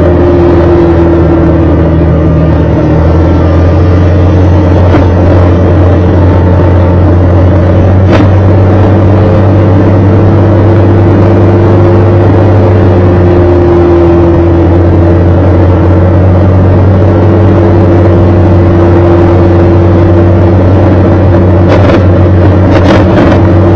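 A vehicle engine running steadily at cruising speed, heard from on board with a loud, even low hum and road noise. Pitch and level stay constant, with a few faint clicks near the end.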